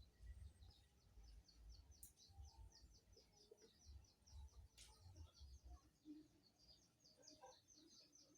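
Near silence, with a small bird faintly chirping in a fast, even series of short high notes, about six a second, from about a second and a half in. Faint low rumbles come and go underneath.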